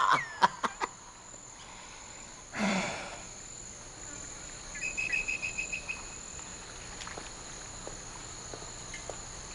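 Outdoor ambience with an insect chirping: a quick, even trill of high chirps about five seconds in, over a faint steady high hiss. A brief rustling burst comes about three seconds in.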